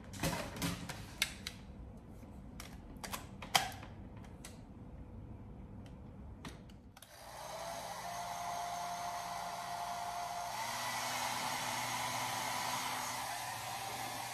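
A few clicks and knocks, then about seven seconds in a compact handheld hair dryer switches on and runs with a steady blowing hiss and a faint motor whine, its tone shifting about three seconds later.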